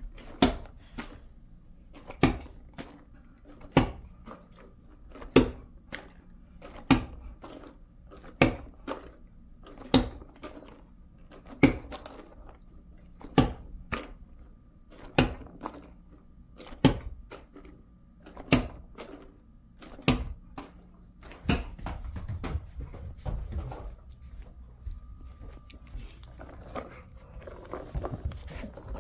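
A spiky rubber dog ball knocking on a hard floor, one sharp knock about every second and a half, more than a dozen times. Near the end the knocks give way to irregular scuffing and rustling.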